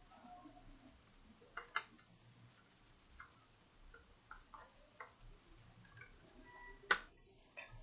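Faint, scattered light clicks and taps of small hard objects being handled, irregularly spaced, with the sharpest click about seven seconds in.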